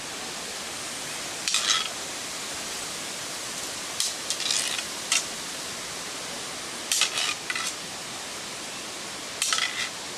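Shashka blades clashing in fencing practice: short groups of metallic clinks and scrapes every two or three seconds, over a steady hiss.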